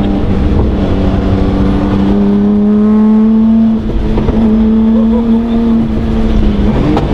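Nissan S14's swapped-in RB25 turbocharged straight-six, heard from inside the cabin while driving hard. Its note climbs steadily, dips briefly about four seconds in, then holds and falls off near the end.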